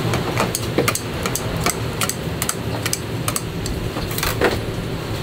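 Kitchen utensils at a noodle stall clicking and tapping against plates and a steel counter: an irregular run of quick, sharp clicks, with a cluster of louder knocks about four seconds in. A steady kitchen hum sits underneath.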